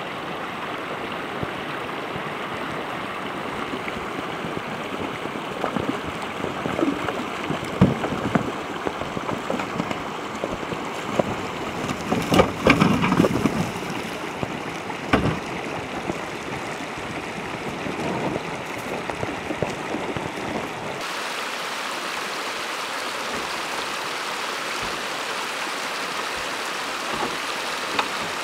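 Shallow stream flowing over stones, a steady rush of water. In the first part there are scattered knocks and thuds, the loudest cluster about halfway through. About three quarters of the way in, the sound changes abruptly to a brighter, even rush.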